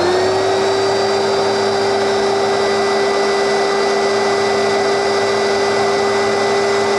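Oreck XL Classic upright vacuum cleaner running loud and steady with a constant motor whine, just switched on and at full speed after a brief spin-up. Its newly replaced belt is driving the brush roll, showing the belt job has worked.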